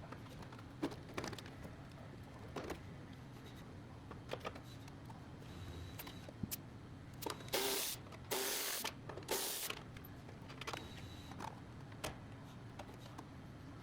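Faint background hum with scattered light clicks and knocks, and three short loud hissing blasts in quick succession about halfway through.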